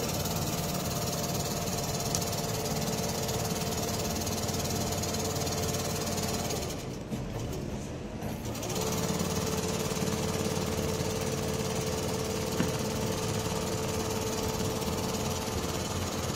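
Richpeace rotary-head CNC sewing machine stitching a car door panel at speed: a fast, steady needle clatter over a constant motor whine. About seven seconds in the stitching eases off for a couple of seconds, then runs on again.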